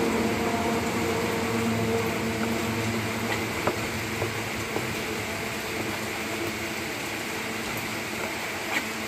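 A steady mechanical hum with a low drone, slowly fading, from an unseen machine. A few faint knife taps on a wooden chopping board as raw pork is cut.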